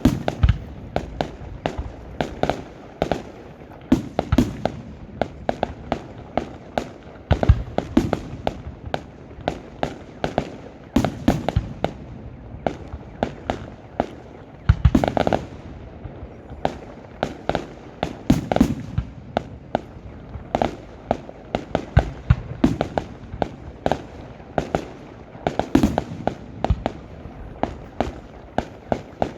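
Fireworks display: a rapid, unbroken string of sharp bangs and cracks, several a second, with louder booms every few seconds.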